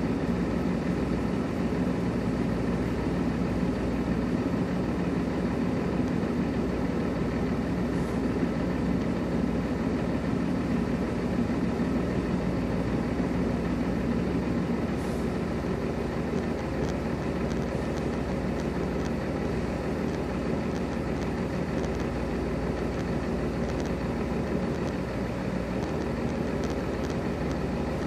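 Semi-truck diesel engines idling with a steady rumble, the sound unchanging throughout.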